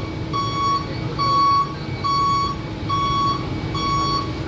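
A vehicle's reversing alarm beeping steadily, about one short beep a second, over the low rumble of an engine running.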